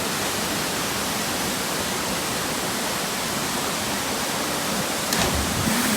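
Steady rushing of falling water from a waterfall, even and unbroken, with a single sharp click about five seconds in.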